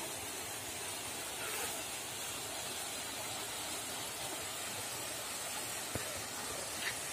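Steady rushing of a stream flowing over rocks, with two small clicks near the end.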